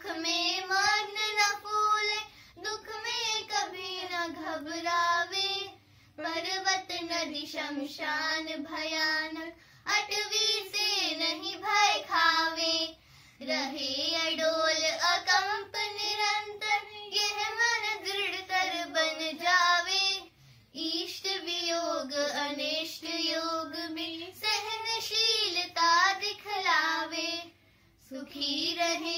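Two children, a girl and a boy, singing a Jain prayer hymn in Hindi, in sung lines of a few seconds each with brief pauses for breath between them.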